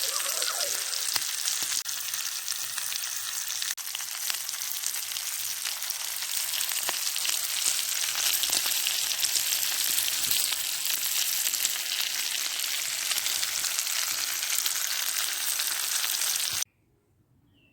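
Sirloin steak, king prawns and potatoes frying in a Petromax cast-iron skillet over a campfire: a steady sizzle with scattered crackling pops. It cuts off suddenly near the end.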